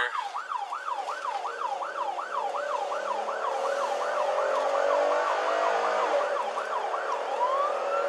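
Police car siren in a fast yelp, sweeping up and down about three times a second, switching near the end to a slow wail that rises and holds, heard from inside the patrol car.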